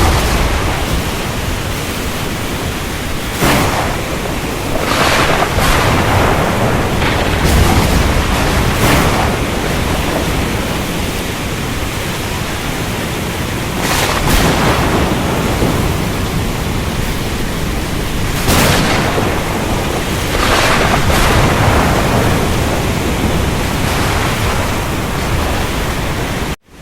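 Ocean storm: a steady wash of wind, rain and surf, with several louder surges of breaking waves and thunder. The sound cuts out for a split second near the end.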